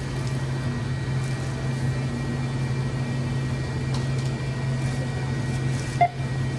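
Steady low mechanical hum, with one short beep about six seconds in.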